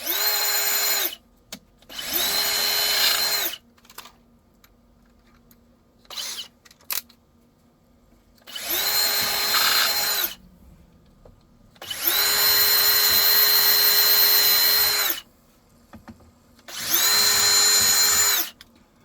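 Power drill boring 1/8-inch pilot holes, run in five short bursts. Each burst spins up to a steady high whine and winds down when released, the longest of them about three seconds.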